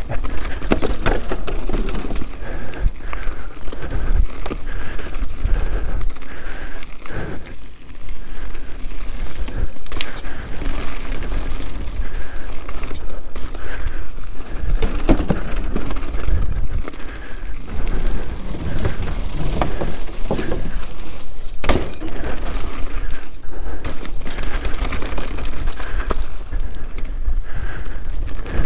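Canyon Sender downhill mountain bike ridden fast down a rough dirt trail: tyres running over dirt and stones and the bike rattling, with frequent sharp knocks from hits, the sharpest about 22 seconds in. A steady low rumble of wind buffets the microphone throughout.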